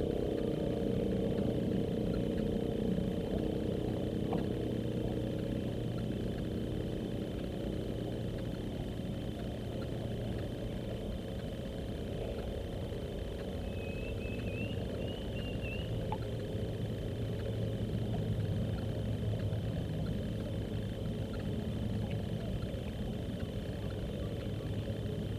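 Steady low engine drone, with a thin steady high tone over it and a few short chirps about 14 seconds in.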